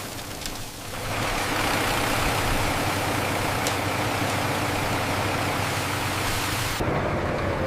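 An engine running steadily under a broad hiss. About seven seconds in the sound changes abruptly and the hiss drops away.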